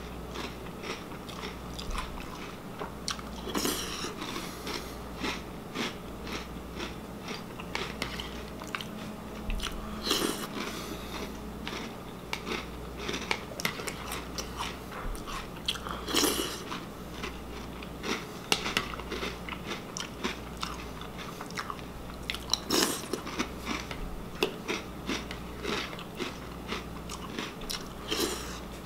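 Close-up chewing and crunching of Reese's Puffs cereal, with sharper, louder clicks about every six seconds as the metal spoon dips into the plastic bowl.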